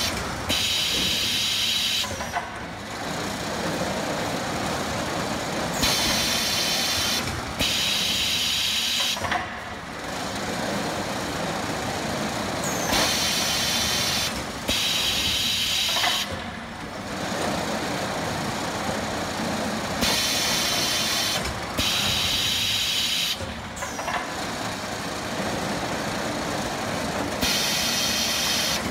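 Robotic palletizing line running: a steady machine hum from the Fuji Ace EC201 palletizing robot and its roller conveyors. Over it come bursts of pneumatic hissing, each about two seconds long, mostly two in quick succession, returning about every seven seconds with the robot's work cycle.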